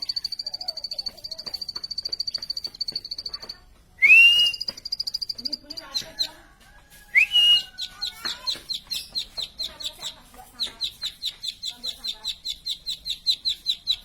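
Plain prinia singing: a fast trill of repeated high notes, broken by two short upward-swooping calls about 4 and 7 seconds in, then a rapid run of clipped notes at about six a second.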